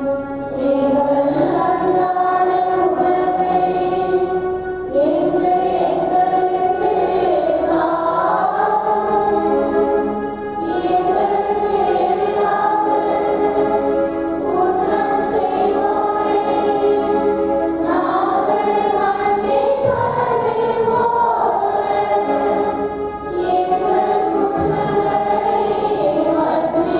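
Church choir singing a sung part of the Catholic Mass, in long phrases with short pauses between them.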